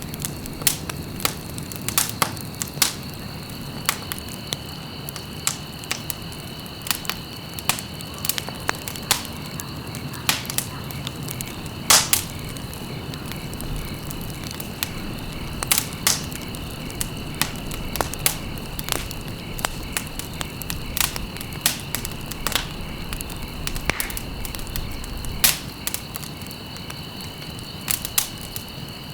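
Campfire crackling, with sharp, irregular pops and snaps over a low steady rush of flame. Insects keep up a steady high-pitched trill behind it.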